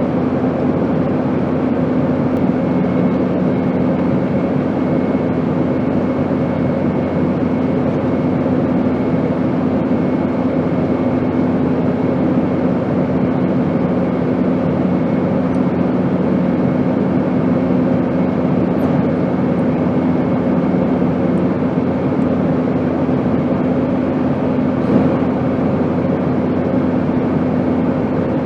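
Steady airplane engine drone: an even rushing noise with a constant low hum and a few held tones, unchanging in level.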